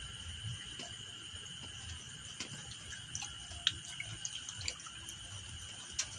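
Quiet night ambience by reservoir water: a steady high-pitched hum over a low rumble, with scattered small drip-like clicks about halfway in and near the end.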